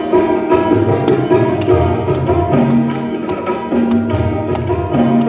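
Background music in an instrumental passage: a steady beat on hand drums under plucked and melodic instruments.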